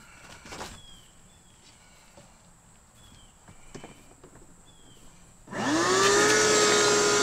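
An electric vacuum cleaner switches on about five and a half seconds in, its motor whine rising quickly to a steady high pitch over loud rushing air. Before that, only faint clicks and knocks.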